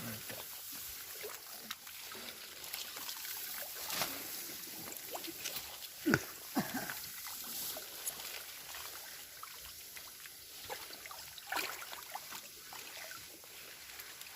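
Water trickling and sloshing, with a few sharper splashes, the strongest about six seconds in.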